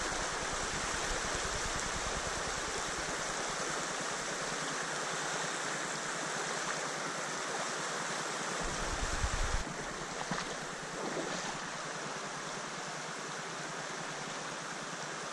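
Steady rushing of flowing stream water, with a few soft bumps about nine to ten seconds in.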